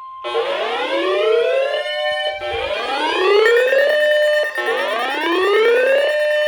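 Electronic alert siren sounding a rising whoop, three times about two seconds apart, after a short steady tone at the start. A steady high tone is added partway through.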